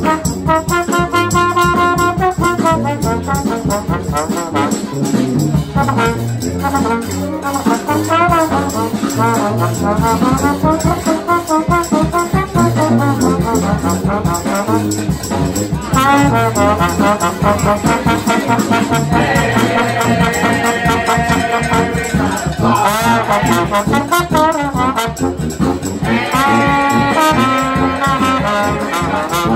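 Live brass band music: trombone and trumpet playing melody lines over a sousaphone bass, with saxophones and flutes filling in. It plays continuously at full volume.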